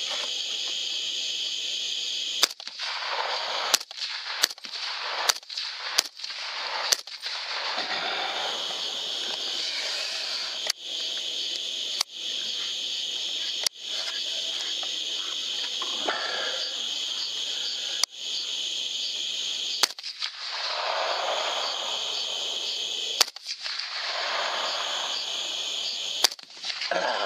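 Suppressed Aero Precision AR-style rifle fired about a dozen times: a quick string of five or six shots from about two and a half seconds in, then single shots every one to three seconds. Crickets chirr steadily behind the shots.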